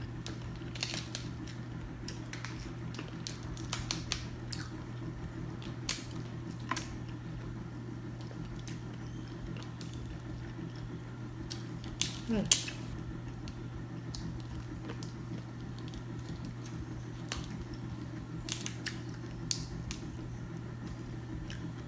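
Hands cracking and peeling boiled seafood shells: scattered sharp cracks and snaps, loudest in a quick cluster about 12 seconds in, over a steady low hum.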